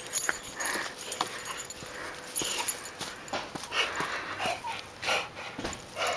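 A Rhodesian ridgeback–American bulldog mix breathing hard in short, irregular huffs right at the microphone, out of breath from running.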